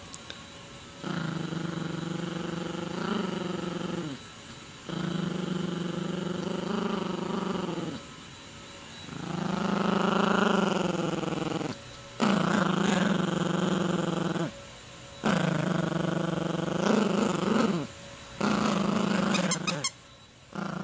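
Yorkshire terrier puppy growling in play while tugging on a plush toy: about six long growls of two to three seconds each, with short pauses between them.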